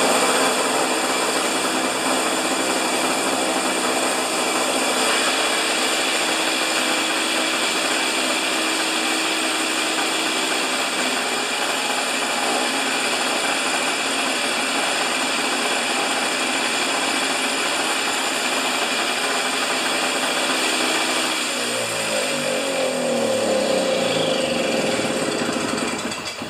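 Husqvarna snow thrower's two-stroke engine running steadily at a fast governed speed, set to about 3800 rpm after a governor adjustment, and sounding healthy. About 22 seconds in its note sweeps and shifts, and the sound drops off at the very end.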